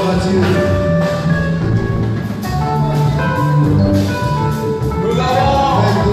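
Live church music in a large hall: a melody of held notes over a bass line, with drums and percussion keeping the beat.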